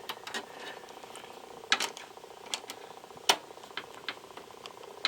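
Scattered small clicks and taps of a screwdriver working the bracket screw of an expansion card back into a PC case, at an irregular pace with a couple of sharper clicks.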